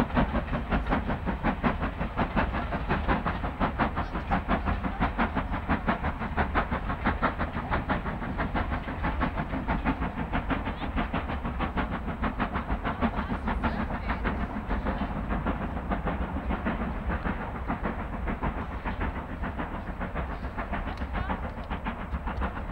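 Steam locomotive working hard with a train, its exhaust beating in a steady rhythm of about four to five chuffs a second, growing slightly fainter towards the end.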